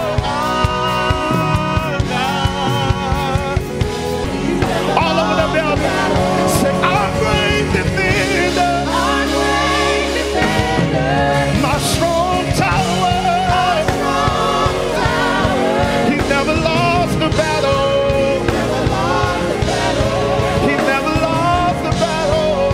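A church praise team singing a worship song live, several voices with vibrato over keyboard and band backing.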